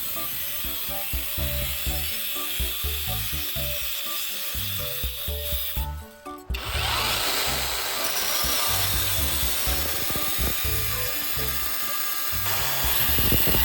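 Power tool working on a steel saw blade that is being cut, shaped and sharpened, with background music. About six seconds in, the sound breaks off briefly, then comes back as a harsher tool sound whose pitch falls.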